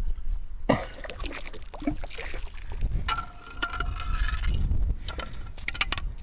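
Water splashing and trickling as a fishing magnet and its rope are hauled out of the water with a scrap-iron catch, with a few sharp clicks and a steady low rumble underneath. A brief high scraping tone sounds about three seconds in.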